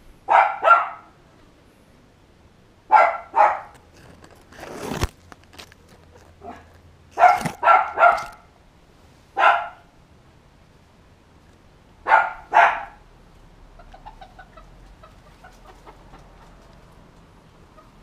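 Dog barking in short bursts, mostly in pairs, about ten barks in all, with a single thump about five seconds in.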